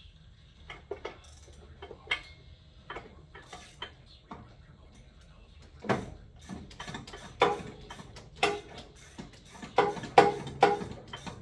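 Ratchet wrench and socket clicking while working a spark plug on a riding mower engine: a few light clicks at first, then from about halfway in a run of louder, closer-spaced ratcheting clicks.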